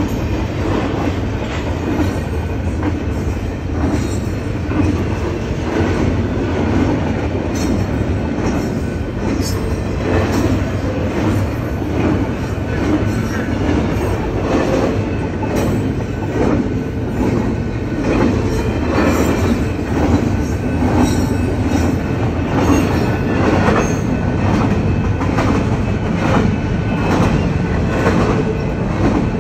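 Freight train rolling steadily past a grade crossing: continuous rumble of the cars with the wheels clacking over the rail joints.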